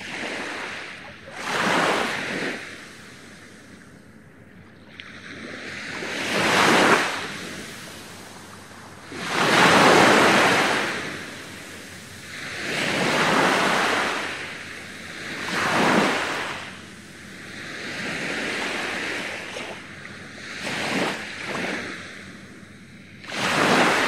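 Small waves breaking on a sandy beach and washing up the sand, each wash swelling and fading, about eight in a row every few seconds.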